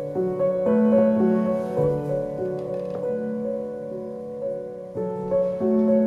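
Background piano music, with sustained notes that overlap and change every second or so.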